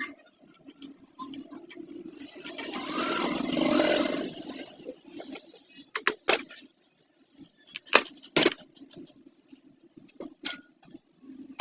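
Sharp metallic clicks and knocks of a sewing machine being worked on by hand, over a steady low hum. A rushing noise swells and fades a couple of seconds in.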